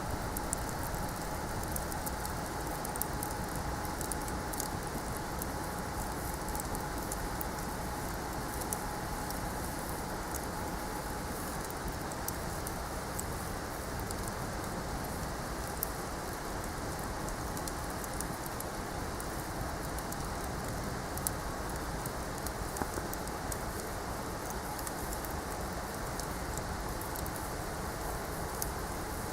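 Wood bonfire crackling: frequent small sharp pops and snaps over a steady rushing noise.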